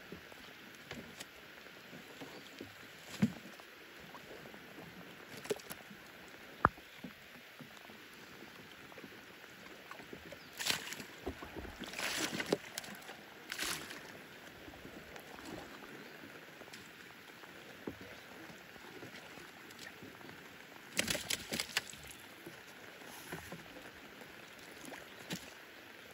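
Single paddle dipping and splashing as a small wooden boat is paddled, in clusters of strokes about ten seconds in and again a little past twenty, over a steady hiss of rain falling on the lake surface. A few sharp knocks of wood come in the first seven seconds.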